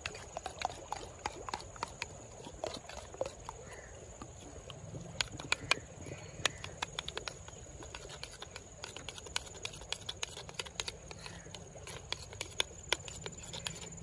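A metal utensil stirring a thick yogurt-and-herb sauce in a bowl, with irregular sharp clicks and taps as it knocks and scrapes against the bowl's sides and bottom, busiest in the middle of the stretch.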